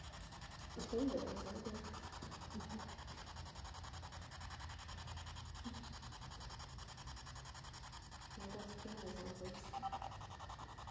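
Steady hiss with two short, faint voice fragments, one about a second in and another near the end.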